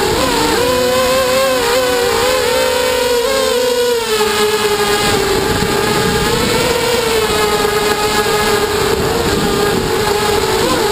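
QAV250 racing quadcopter's four brushless motors and propellers whining, heard from the camera mounted on the drone. The pitch wavers up and down with the throttle.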